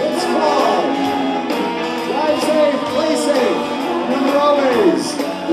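Live band music: acoustic and electric guitars playing together with a melody line of notes that slide up and down.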